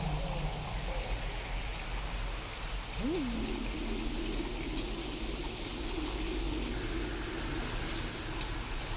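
Steady rain hiss from a storm recording altered to sound alien. About three seconds in, a low pitched tone swoops up and drops back to a steady hum, with a wavering tone above it to the end.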